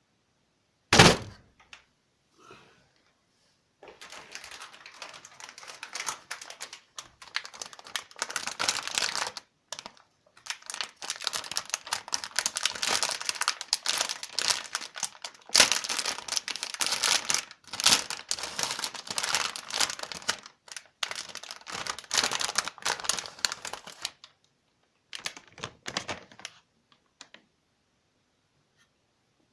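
Packaging being unboxed by hand: a thump about a second in, then long stretches of crinkling and clicking plastic and cardboard with brief pauses, and a short last bit of rustling near the end.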